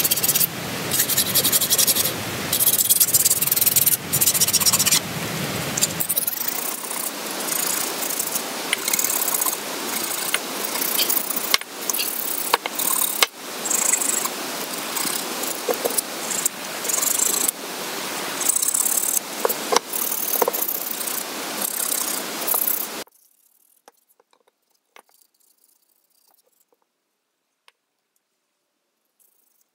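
Hand-sanding a peeled wooden branch with sandpaper: rapid, uneven back-and-forth scratching strokes that stop about 23 seconds in, leaving only a few faint knocks.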